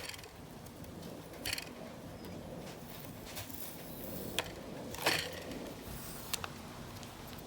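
A few scattered small clicks and rustles of hands handling the doll's parts, over a steady low background hum.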